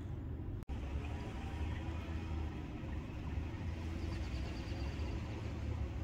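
Steady low outdoor rumble, like distant traffic or wind on the microphone, cutting out for an instant under a second in.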